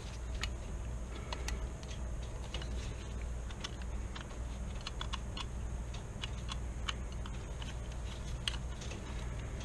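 Scattered light clicks and taps of small steel rifle parts being handled and pressed into place while the action is fitted back together, over a low steady hum.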